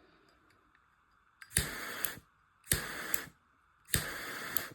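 Small butane jet torch lighter fired three times, about a second apart: each press gives a sharp igniter click and then about half a second of steady flame hiss that cuts off when released.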